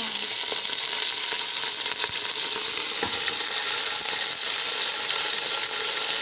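Bone-in beef shank slices searing in hot oil in a pot: a steady, loud sizzle, with a second slice laid in partway through.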